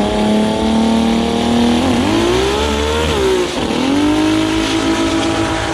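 Car engine running at high revs, its pitch climbing with two brief sharp dips, about two and three and a half seconds in.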